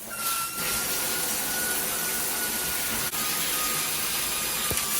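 Water spraying steadily from a 10-inch rain shower head, an even hiss with a faint high whistle. A click sounds about three seconds in, and the whistle drops slightly in pitch after it.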